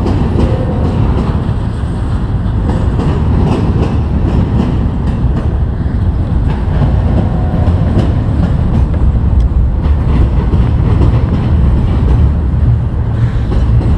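Freight train rolling past close by: a steady low rumble of the cars with wheels clicking over the rail joints.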